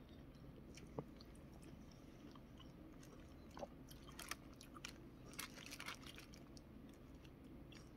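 Faint, scattered clicks and scrapes of chopsticks in a takeaway food box, with soft chewing.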